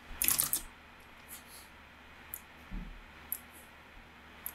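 Computer mouse clicks and keyboard keystrokes: a quick run of clicks a quarter second in, then single clicks about once a second, with one soft low thump near the end.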